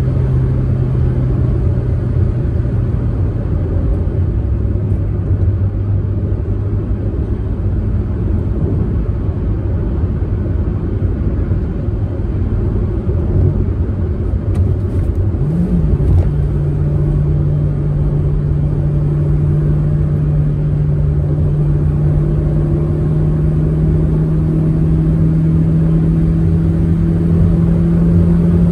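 Proton Saga MC2's four-cylinder engine running under way with tyre and road rumble. About halfway through the engine pitch briefly rises and falls. It then settles higher and climbs slowly.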